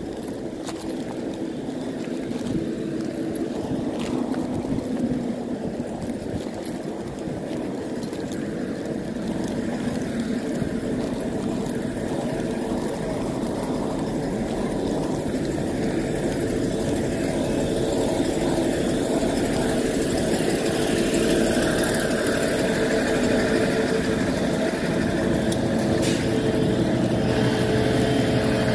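CP 0450-series diesel multiple unit (UDD 0466) standing at the platform with its diesel engines idling: a steady engine drone with a constant hum, growing gradually louder.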